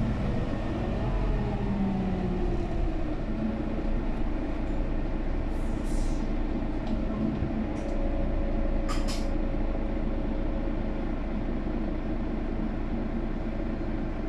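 Cabin noise of a Mercedes-Benz Citaro O530G articulated bus with a Voith automatic gearbox under way: a steady engine and road rumble, with the engine's pitch gliding during the first few seconds. A few brief sharp noises come about six and nine seconds in.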